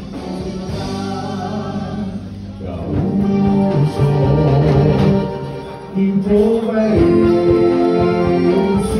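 Music with group singing accompanying traditional gaúcho folk dancing; it grows louder about three seconds in.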